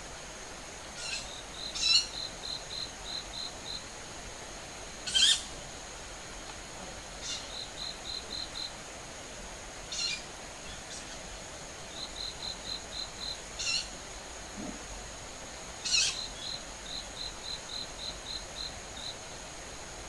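Night calls of an unidentified creature, which the recordist takes for a bird and suspects may be a young owl. About seven short, harsh, high calls, with runs of six to eight quick high pips between them, over a steady high-pitched insect-like drone.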